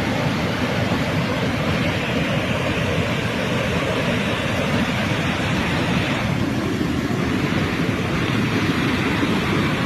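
Waterfall pouring steadily, a constant rushing of falling water; about six seconds in the rush turns slightly deeper.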